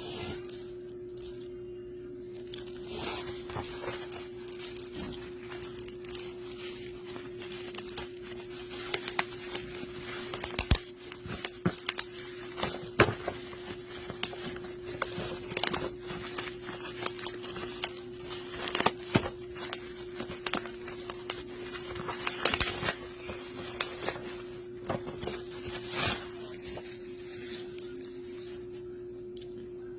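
Packaging of a phone holder being opened by hand: rustling and tearing with scattered taps and clicks as parts are handled, over a steady low hum.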